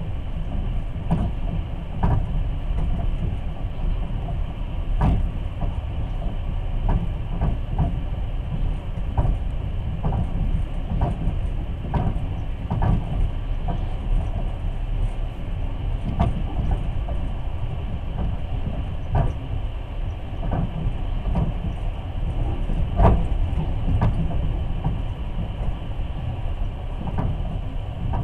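Long-distance passenger train running, heard from inside the carriage: a steady low rumble of wheels on the track, with irregular sharp knocks and clicks as the wheels cross joints in the rail.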